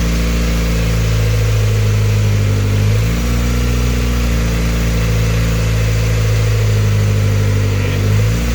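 Freshly rebuilt turbocharged Honda D16Z6 SOHC four-cylinder engine idling cold on its first run, steady with its idle speed shifting slightly about three seconds in and again near the end.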